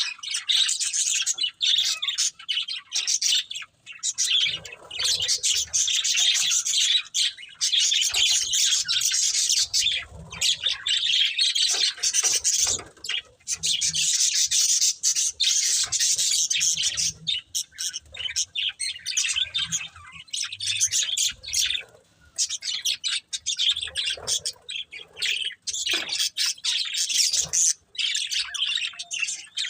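Budgerigars chirping and chattering almost without pause, a dense run of short, high warbled notes with brief breaks.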